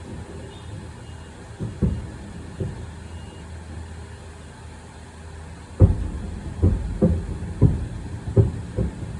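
Fireworks bursting: a series of low booms, a few spaced apart at first, then a quicker run of about seven from about six seconds in, over a steady low rumble.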